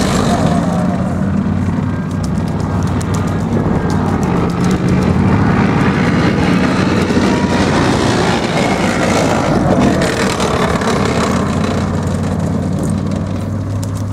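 Tracked armoured vehicle driving, its engine running loud and steady under load as it crosses a barricade of tyres and wire.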